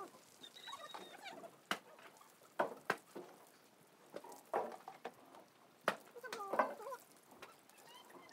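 Water poured from a plastic mug over a person's hair, splashing and pattering onto the ground in scattered sharp splashes. Short chirping fowl calls come in between.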